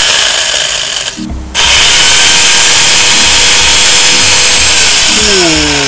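Angle grinder fitted with a chainsaw conversion attachment running at full speed, the chain whirling around its bar: it is switched on, eased off briefly after about a second and a half, runs flat out again, then is switched off and spins down with a falling whine near the end.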